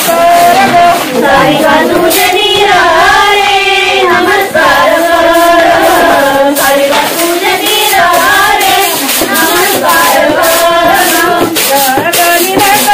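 A group of women singing a traditional Marathi wedding song together, sung while cleaning the wedding rice: long held notes that bend up and down, with no words spoken.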